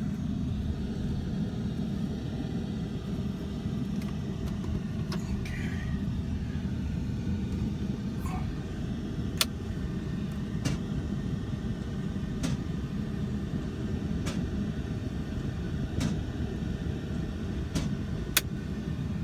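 A vehicle driving over a ranch pasture, its engine and tyres making a steady low rumble. Sharp clicks come every second or two in the second half.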